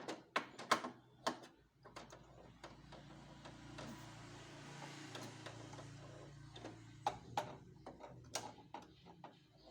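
Small sharp clicks and taps of a screwdriver working the screws out of a copier's document feeder, in a cluster near the start and again in the last few seconds. A faint steady hum fills the stretch between.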